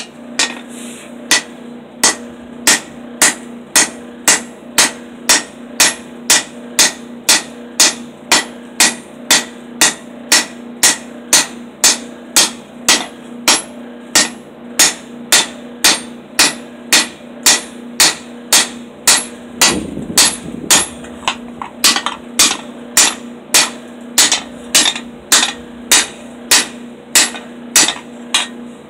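Hand hammer forging a red-hot steel cleaver blank on an anvil: sharp, evenly paced blows, a little under two a second, starting about two seconds in. A steady low hum runs underneath.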